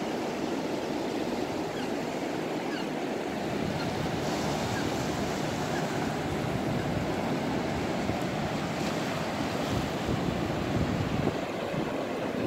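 Ocean surf breaking and washing up the sand, a steady rushing noise.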